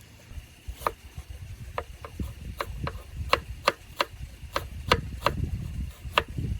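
Knife chopping on a cutting board, about a dozen irregular strokes at roughly two a second.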